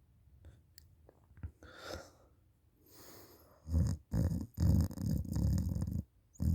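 A person snoring open-mouthed while asleep: a quiet lull with a soft breath about two seconds in, then loud snoring from a little before four seconds in, coming in several pulses with short breaks between them.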